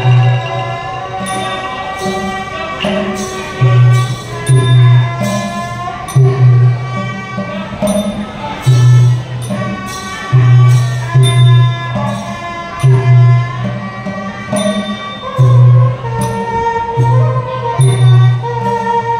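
Thai piphat mon ensemble playing: circles of tuned Mon-style gongs (khong mon) and other melodic instruments, over low drum strokes that come back again and again.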